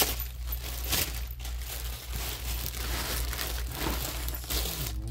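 Plastic packaging crinkling and rustling as hands open a clear plastic bag and pull out a tote wrapped in a plastic sheet, with sharper crackles at the start and about a second in.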